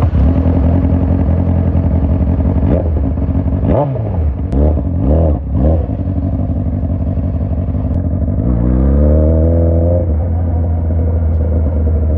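Honda CBR600's inline-four engine running with no exhaust fitted: idling, with several quick throttle blips about three to six seconds in, then a longer rev that rises and is held for about a second and a half before dropping back to idle.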